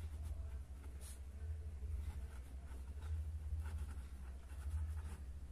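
Pen writing on paper by hand, faint scratchy strokes, over a steady low hum.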